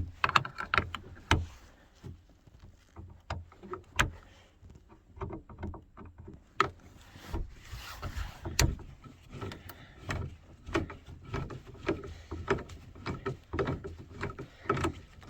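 Phillips screwdriver working a screw out of a minivan's door lock by hand, with irregular clicks, scrapes and knocks of metal on metal.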